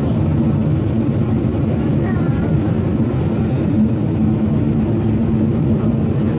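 Steady low rumble and hum inside a Peak Tram funicular car running along its cable-hauled track, with faint voices in the cabin.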